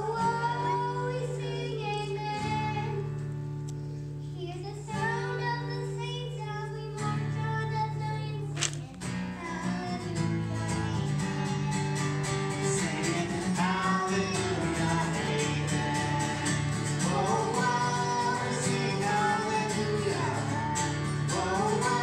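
A young boy singing through a microphone, accompanied by an acoustic guitar. The guitar moves into steady strumming about nine seconds in.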